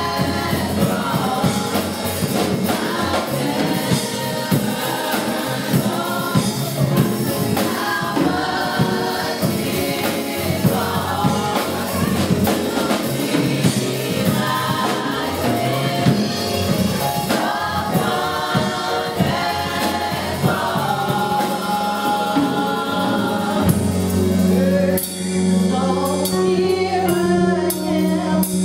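Gospel praise team of women singing together into microphones over a live band with a steady beat. Near the end, the singing thins over a held low chord.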